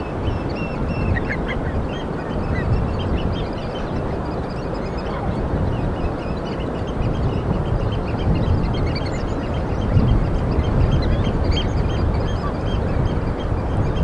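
A flock of budgerigars chirping and chattering, many short high chirps overlapping, over a steady low rumbling noise.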